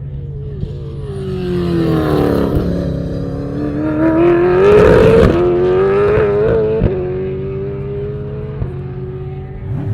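V8 engine of a Super5000 open-wheel racing car, its note falling and then climbing hard to its loudest about five seconds in. It breaks sharply twice as gears change, then carries on at a steadier pitch, slowly fading.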